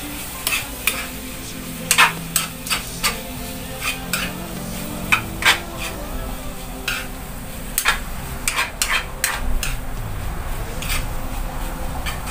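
Metal spatula scraping and clacking against a frying pan in irregular strokes as bitter gourd with carrots, fish and egg is stir-fried, over the sizzle of the food.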